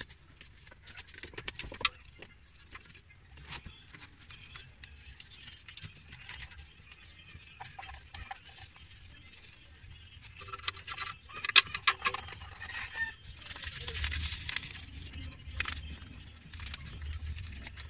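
A toothbrush scrubbing grime off wet engine parts: bristles scratching and rubbing over plastic, rubber and metal in uneven strokes. The scrubbing grows busier in the second half, with a few sharp clicks a little past halfway as the brush knocks against parts.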